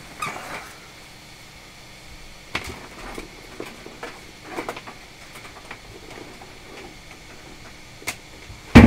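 Scattered light clicks and knocks of equipment and cables being handled on a workbench while someone searches for an unplugged power lead, with one sharp, loud knock near the end.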